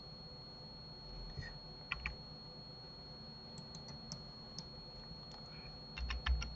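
Computer keyboard keys pressed as Blender shortcuts, a few scattered taps, then a quick run of louder keystrokes with soft desk thuds about six seconds in.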